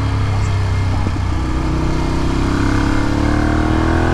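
2012 Ducati Monster 696's air-cooled L-twin running through Akrapovic slip-on exhausts. The engine note dips slightly, then rises steadily from about a second in as the bike accelerates out of a turn, over steady wind noise.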